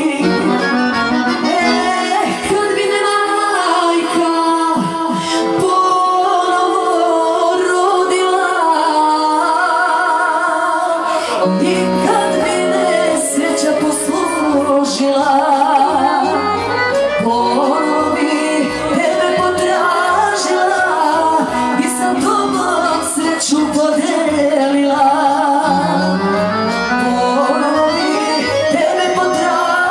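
Live folk music with singing. A low bass line comes in about twelve seconds in.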